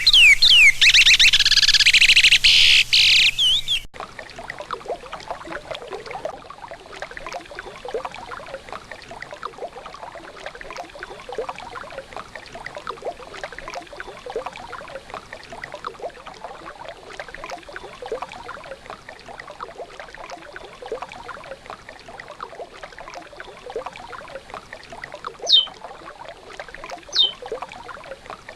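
Curió (chestnut-bellied seed finch) singing a rapid run of sliding whistled notes in the regional Sergipano style, which cuts off abruptly about four seconds in. River water then flows and babbles steadily, with two short high chirps near the end.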